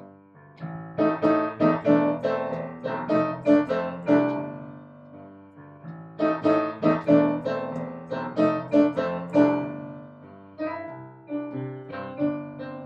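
Background piano music: a solo piano playing phrases of struck notes, beginning softly and growing fuller about a second in, with a softer passage near the end.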